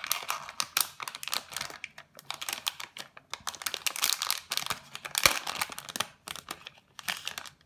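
Clear plastic bag crinkling and crackling as it is peeled open by hand around a circuit board, with irregular crackles throughout. A single sharp knock comes about five seconds in.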